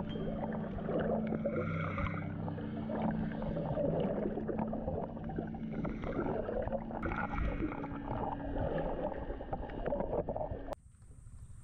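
Water sloshing and gurgling heard underwater during snorkeling, muffled, with a steady low hum beneath it. It cuts off abruptly near the end.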